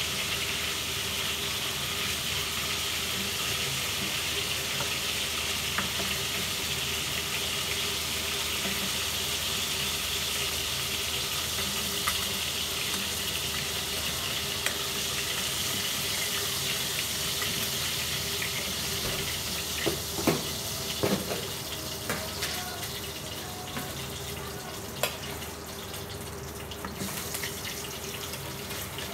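Hilsa fish frying lightly in oil in a pan: a steady sizzling hiss that eases a little after about 22 seconds. A few sharp knocks come about 20 seconds in.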